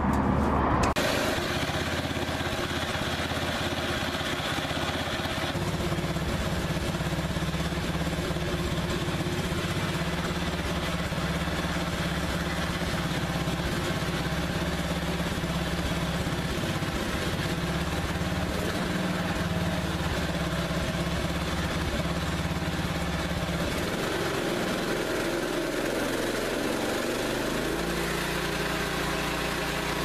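Homemade band sawmill with its blade on two car wheels, running with a steady engine drone. The pitch of the drone shifts about 24 seconds in and settles again near 27 seconds.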